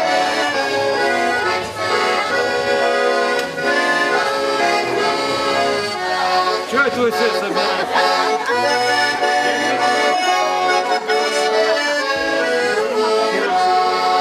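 Russian garmon, a button accordion, playing a folk tune in steady chords.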